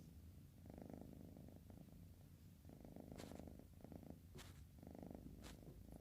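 Domestic cat snoring while dozing: a faint low rattle in four short, breath-long spells, each under a second.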